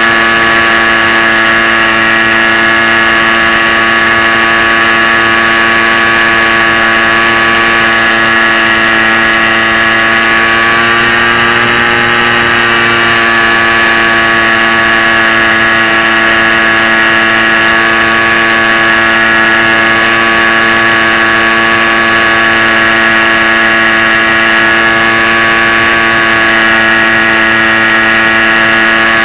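The HobbyZone Champ RC plane's small electric motor and propeller running steadily under power, recorded close up by the camera on the plane. The pitch rises a little around the middle, then settles back.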